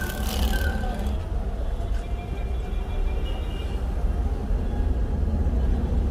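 Car in motion: a steady low rumble of engine and road noise, with a few faint short high tones over it.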